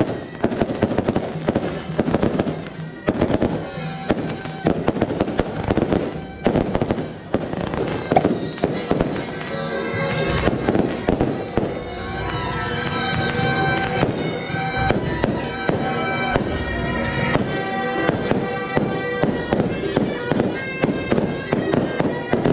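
Strings of firecrackers crackling in a rapid, continuous barrage. From about ten seconds in, music with held notes plays over the crackle.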